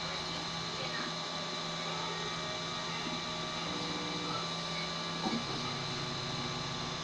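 FDM 3D printer running a print: its stepper motors whine in steady tones that switch and change pitch as the print head moves, over a constant hum. A small tick a little after five seconds in.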